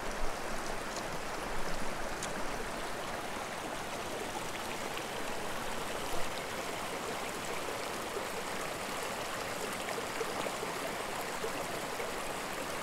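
Small mountain stream running steadily over rocks and fallen logs, a close, even babble of water. A few brief soft knocks stand out above it about two seconds in and about six seconds in.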